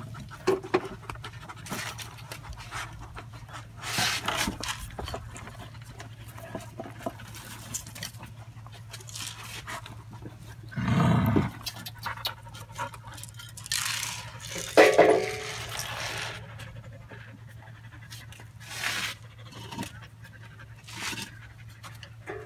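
Thai Ridgeback dogs panting and snuffling with their heads down at a feed container, with scattered clicks and a few louder bursts, the loudest about halfway through.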